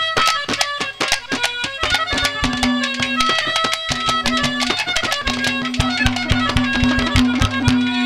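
Instrumental break in live Haryanvi ragni folk music: fast, steady hand-drum strokes under a sustained melody line, with no singing.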